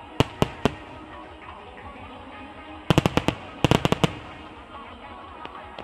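Fireworks bursting over music played for the display: three sharp bangs near the start, then two quick volleys of rapid cracking reports about three and four seconds in.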